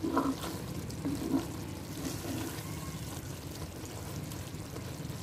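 Sliced gourd (ghiya tori) simmering and sizzling in a clay pot, with a wooden spoon stirring and scraping it a few times in the first second or so. The lid is off, so the water the gourd released is cooking down.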